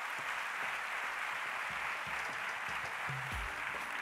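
Audience applauding steadily, with a low thump about three seconds in.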